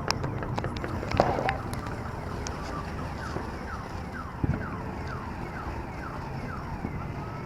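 An electronic siren cycling through quick falling sweeps, two to three a second, then changing to a slow rising wail near the end. Pops and crackles of fireworks come in the first second or so, with a few dull thumps.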